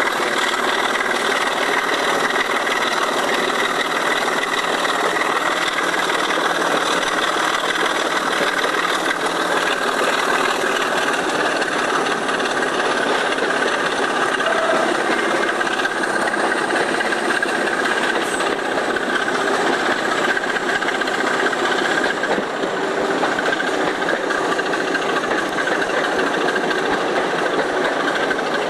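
BR Class 25 diesel locomotive D5217's Sulzer 6LDA28 six-cylinder engine working steadily at full power, heard from a window close behind the locomotive as the train runs along.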